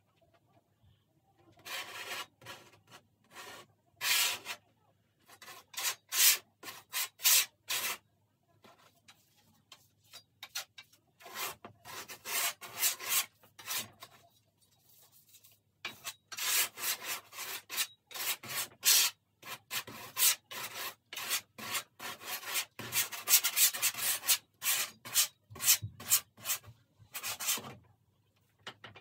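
Wide painting knife scraped across a stretched canvas in repeated strokes, spreading and pulling the paint. The strokes come in runs, with a few pauses of a couple of seconds between them.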